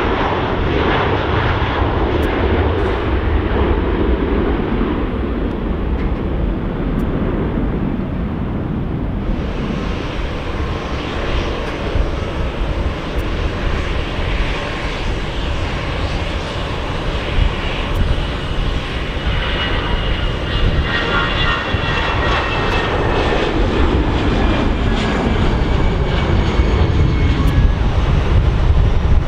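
Jet airliner engines: an Airbus A330 at takeoff thrust as it lifts off, then, after a change about nine seconds in, an Airbus A319's engines running on the runway with a turbine whine coming in around twenty seconds in.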